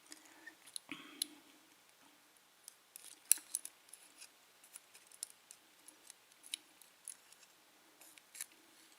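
Faint small metallic clicks and taps as the pin stacks are taken out of a Dexter pin-tumbler lock's chambers one at a time, with the sharpest click about three seconds in.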